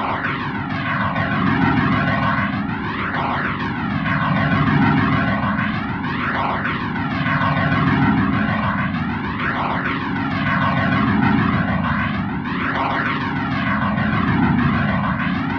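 Harsh noise music: a dense, steady wall of noise run through a sweeping flanger, with a jet-like whoosh rising and falling every second and a half or so.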